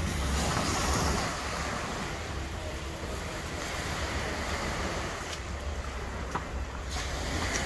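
Small sea waves washing onto the beach, with wind rumbling on the microphone, strongest in about the first second.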